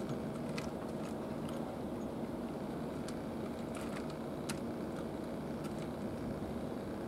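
Steady low mechanical hum of machinery or engines, with a few faint clicks.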